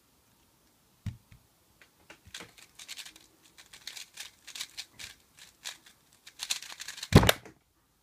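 A 3x3 speedcube being turned very fast: a quick, irregular run of plastic clicks and clacks as the layers snap round, ending in a loud thump as the solved cube is put down and the timer stopped. A softer thump comes about a second in.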